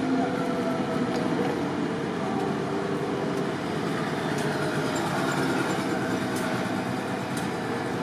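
Seibu 2000-series electric commuter train rolling slowly through the level crossing into the station: a steady rumble with faint whining tones that fade over the first few seconds.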